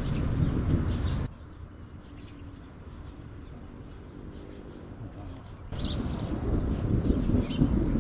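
Birds chirping over a low rumbling outdoor noise. The rumble cuts out abruptly about a second in and returns just as abruptly near six seconds, leaving only the faint chirps between.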